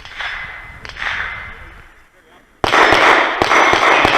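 Several loud, sharp gunshots at close range, starting suddenly about two and a half seconds in, with the reports ringing and echoing on for over a second.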